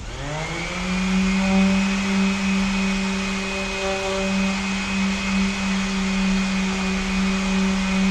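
Electric sander switched on, its motor spinning up over about a second and then running at a steady pitch.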